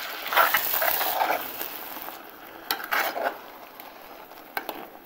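Spoon stirring wet tomato salsa into frying scrambled egg and suadero in a glazed clay pot, with irregular scraping strokes. A sizzle under the stirring stops about two seconds in.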